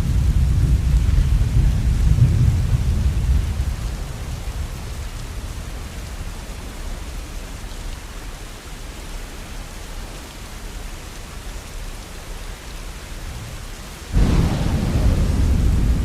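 Steady rain with thunder: a low rumble dies away over the first few seconds, the rain goes on more quietly, then a new, louder rumble of thunder starts abruptly near the end.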